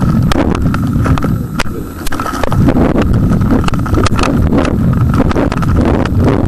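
Wind rumbling over a model rocket's onboard camera microphone, with irregular knocks and clicks of the airframe and camera rattling.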